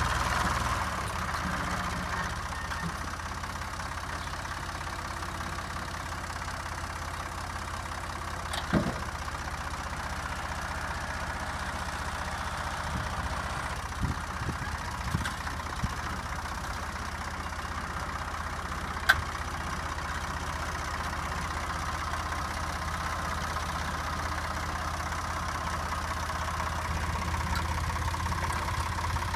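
Tractor engine running steadily, with a few sharp knocks: one about nine seconds in, a small cluster around fourteen to sixteen seconds, and one about nineteen seconds in. It is a little louder at the start and again near the end.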